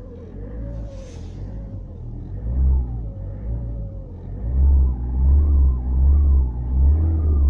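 Opel Vivaro's 2.5-litre G9U turbodiesel engine running and revved in repeated pulses from about four and a half seconds in. A wavering whistle rises in pitch with the revs, and there is a brief hiss about a second in. The owner cannot identify the noise and whistle.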